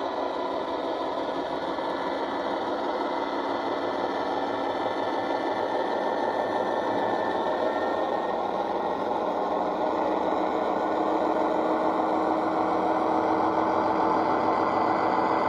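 Recorded Class 58 diesel engine (Ruston V12) sound played by the DCC sound decoder through the small speakers of a Heljan model locomotive, running under power as the loco pulls away with its train. The engine note climbs slightly and grows louder in the second half.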